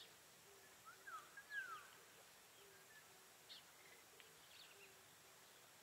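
Near silence at a rural pond edge with faint, scattered bird calls. A few sweeping calls come about a second in, then short quick chirps past the middle. A faint low note repeats about twice a second underneath.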